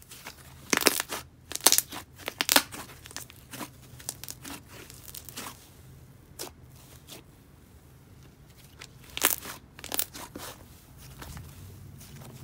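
Thick, dense mint slime being stretched and pressed by hand, crackling with small air-bubble pops and sizzles. The pops come in bunches, busiest in the first few seconds and again near the end, with quieter squishing between.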